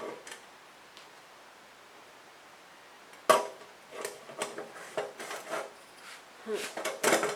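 Metal parts of a Kero World KW-11F kerosene heater knocking and clinking as a part is fitted into place: a sharp knock about three seconds in, then a run of lighter clatters.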